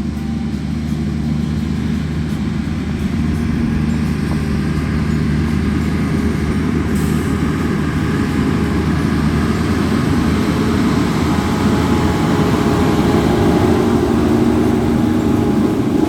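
A large vehicle engine running steadily with a low rumble, getting gradually louder.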